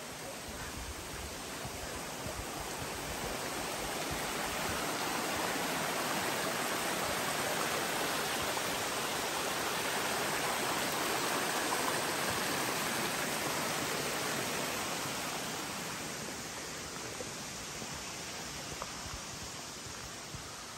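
A small mountain stream rushing over rocks, swelling to its loudest around the middle and fading again as it is passed.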